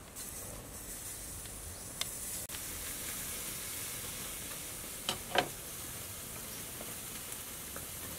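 Metal spoon stirring shredded chicken in a stainless-steel bowl, with two sharp clinks of spoon on bowl about five seconds in, over a steady high hiss.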